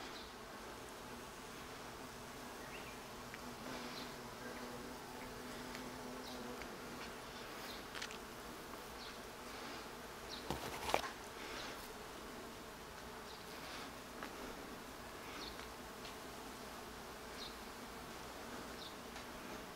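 Bees buzzing at wisteria blossoms, a steady hum, with one bee passing close during the first six seconds or so. Short high chirps are scattered through it, and a brief knock comes about ten and a half seconds in.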